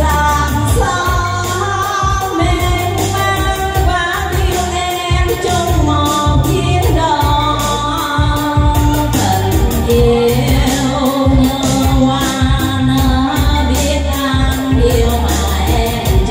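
A woman singing a Vietnamese song into a microphone over musical accompaniment with a steady beat and bass.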